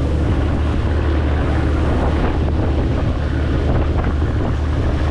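Small cargo boat's engine running steadily under way, a low drone, with heavy wind buffeting the microphone.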